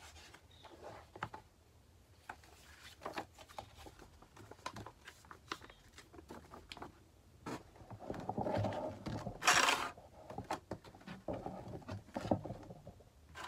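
Hands handling a paper booklet and a plastic blister pack on a cutting mat: scattered rustles and light taps, with one louder brief swish about two-thirds of the way through.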